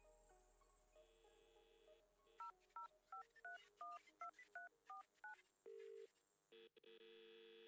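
Touch-tone phone keypad dialing a number: about ten quick two-tone beeps, followed by a short steady tone and then a continuous tone.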